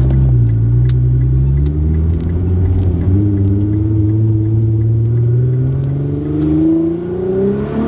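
Nissan R35 GT-R's twin-turbo 3.8-litre V6, fitted with a titanium exhaust and 3-inch downpipes, pulling under throttle as heard from inside the cabin. Its note rises slowly and steadily in pitch.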